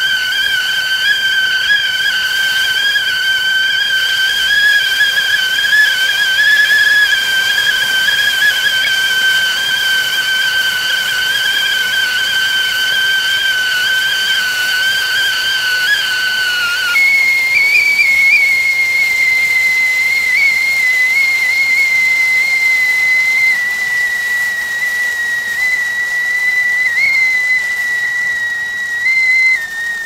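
Whistling tea kettle sounding a steady, high whistle over a hiss of steam. About halfway through, the note jumps higher, then slowly sinks a little.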